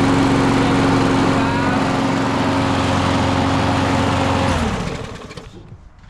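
Husqvarna lawn mower's small engine running steadily at one speed, newly starting again after its no-start fix. It is shut off about four and a half seconds in and winds down to a stop within a second.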